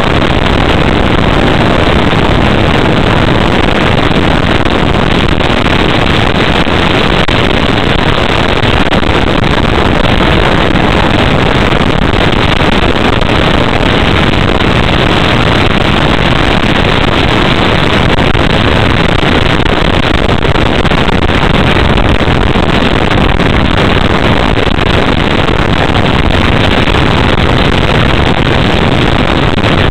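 Steady, loud rushing of air over the onboard camera of a Sky Surfer RC motor glider in flight.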